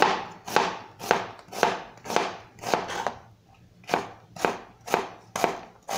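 Chef's knife slicing a halved white onion on a cutting board, the blade knocking the board in an even rhythm of about two strokes a second, with a short pause about halfway through.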